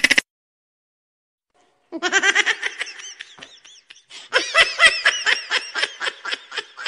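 High-pitched laughter in quick, rhythmic bursts, starting about two seconds in, pausing briefly, then going on in a longer run of rapid laughs.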